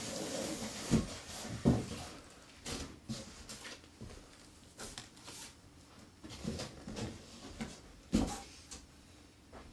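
Handling noises: sharp thumps about a second in, again shortly after and near the end, with softer knocks and rustling between them as items are moved and set down.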